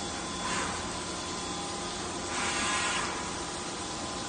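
CNC milling machine cutting aluminium plate: a steady machining noise with a thin whine and a hiss of coolant spray, swelling louder twice as the cutter works.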